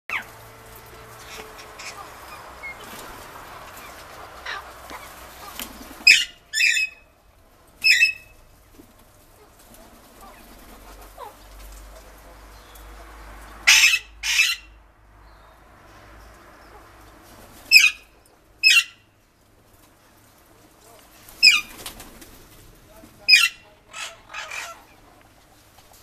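Parakeets giving loud, shrill squawks, singly or in quick pairs every few seconds, starting about six seconds in, over a faint steady background hiss.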